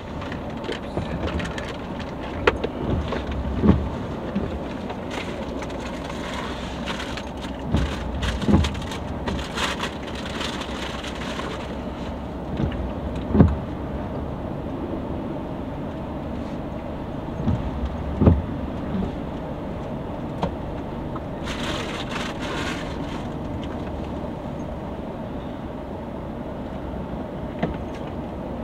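Inside a car creeping forward at low speed: steady low engine and road rumble, broken by a few short dull thumps spaced several seconds apart.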